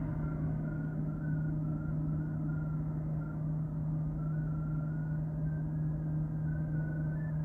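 A steady low machine hum over a rumble, with a faint thin tone above it that steps up and down in pitch.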